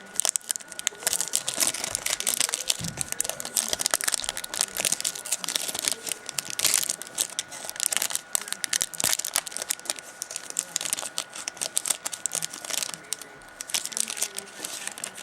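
A football card pack's wrapper crinkling and tearing as it is opened by hand, a dense stream of crackles that goes on throughout. A faint steady high whine sits underneath.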